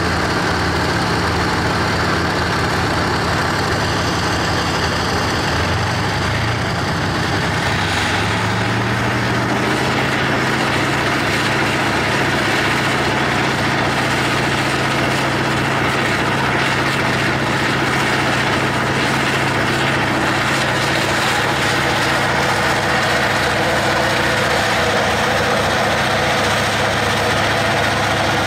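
Tank engine idling steadily, heard close up. About seven seconds in, the engine picks up to a slightly faster speed and holds there.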